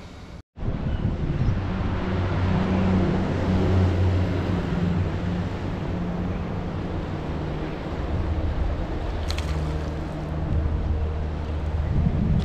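Sound drops out briefly about half a second in, then a small boat's motor runs steadily with a low hum under a continuous rush of wind and water noise.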